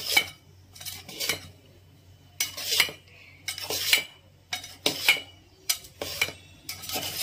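Kitchen knife scraping and clinking against the bottom of a steel pot as it cuts through a steamed egg-batter cake, in about ten short strokes at uneven intervals, some with a brief metallic ring.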